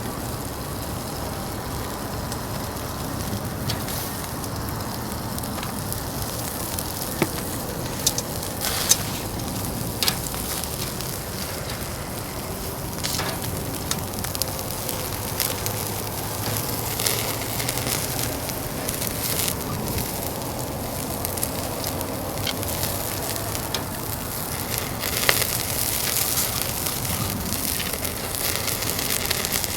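Fire burning in a fire-pit grill with food sizzling on the grate. Steady crackle and sizzle, with a few sharp pops now and then.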